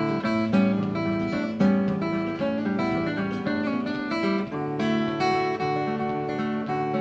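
Acoustic guitar being played, a run of plucked notes and chords.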